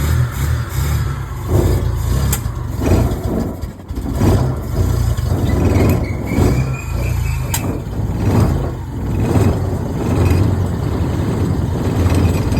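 Maruti Omni's 796 cc three-cylinder petrol engine running just after its first start in four years, its sound swelling and falling again every second or so over a strong low rumble.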